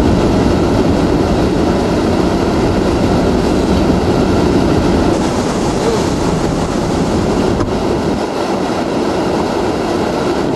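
Category 4 hurricane winds and driving rain making a dense, steady, heavy rush of noise, deep and continuous, with no single gust or impact standing out.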